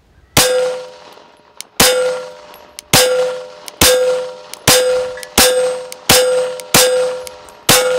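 Glock 34 9mm pistol fired nine times at a deliberate pace, about one shot a second. Each shot is followed by a short metallic ring that fades within a fraction of a second.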